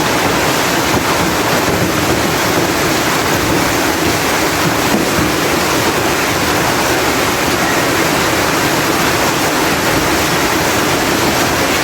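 Heavy hailstorm with driving rain: hail and rain pelting down in a dense, steady rush of noise.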